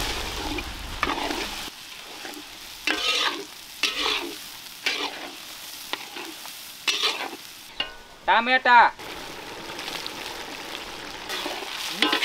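Chopped onions frying in hot oil in a large steel kadai, sizzling steadily while a steel spatula scrapes and turns them in repeated strokes.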